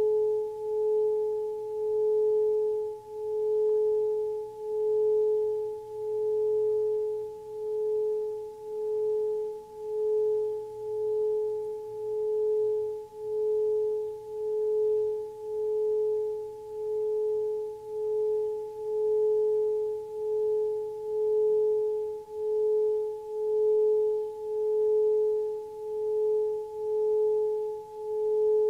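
Metal singing bowl sung by rubbing a wooden mallet around its rim: a steady ringing tone with a fainter higher overtone, pulsing in loudness about once a second.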